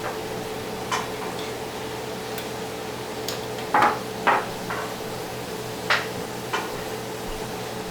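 Small hand-tool work on a car radio display unit: a Torx screwdriver and tiny screws and springs clicking and tapping against its metal frame and plastic housing, about seven irregular taps with the two loudest close together a little before halfway. A steady hum runs underneath.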